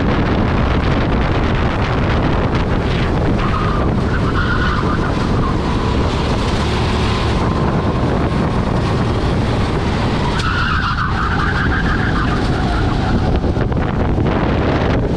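Rental go-kart at racing speed, heard from on board: wind rushing over the microphone over the engine's steady drone. The tyres squeal through corners twice, about four seconds in and again about ten seconds in.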